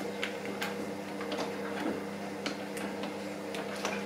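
Wire balloon whisk beating a thin flour-and-water batter in a glass bowl: irregular light clicks of the wires against the glass, over a steady low hum.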